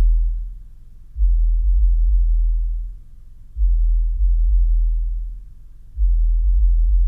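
12-inch ported car subwoofer playing very deep bass notes, each held about two seconds, with short gaps between. One note fades out at the start, then two full notes follow and a third begins near the end.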